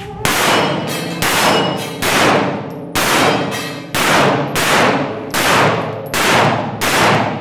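Pistol shots fired at a steady pace, about nine in all, roughly one every second or less. Each shot rings on in the echo of a concrete indoor range.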